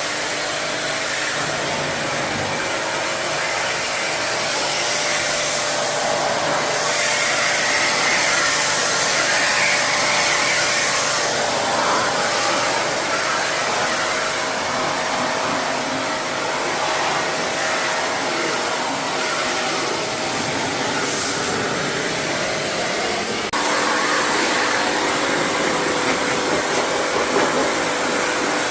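Steady, loud rushing hiss with a constant motor whine from air-conditioner cleaning equipment, changing abruptly about three-quarters of the way through.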